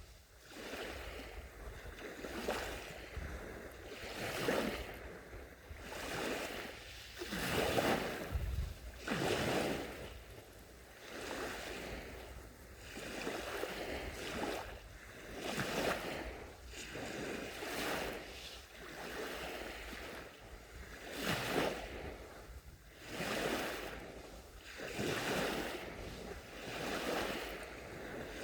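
Small sea waves washing onto a sandy beach, each wash swelling and falling away, a new one every couple of seconds.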